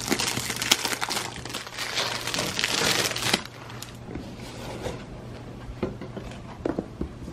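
Clear plastic wrapping crinkling loudly as it is pulled off a tin box, stopping about three and a half seconds in. Then quieter handling follows, with a few light knocks of the tin box on the wooden table.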